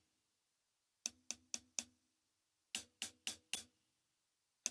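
Closed hi-hat struck on the edge of the cymbal with the shoulder of the drumstick: two quick groups of four strokes, each a sharp, bright chick that dies away quickly.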